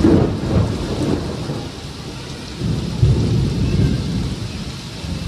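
Thunder rumbling over heavy, steady rain. A rolling rumble is loudest at the start and eases off, then a second swell of rumble comes about three seconds in.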